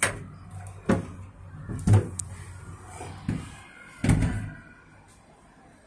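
Tram door being worked open and shut by hand, giving five sharp knocks and bangs over about four seconds as it hits its stops, the loudest two near the middle and about four seconds in.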